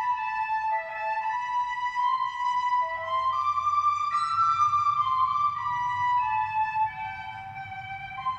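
Music: a slow melody of held notes moving up and down in small steps, over a low steady rumble.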